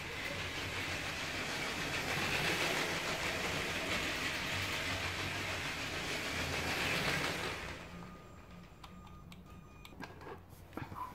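Lego City Cargo Train 60052 running on plastic track, its Power Functions motor whirring and wheels clattering, steady and growing slightly louder, then dying away as the train stops about eight seconds in. A few faint clicks follow.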